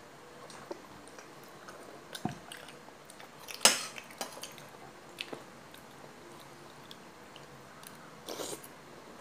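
Someone eating soup from a ceramic bowl: chewing, with scattered clicks of a spoon against the bowl and one sharp knock, the loudest sound, a little under four seconds in.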